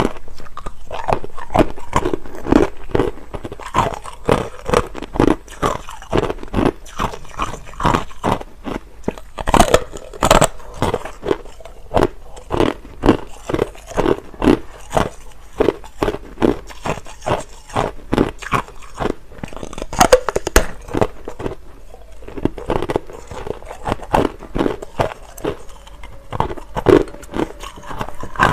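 A person biting and chewing hard, clear crushed ice, with a steady run of sharp crunches about two to three a second.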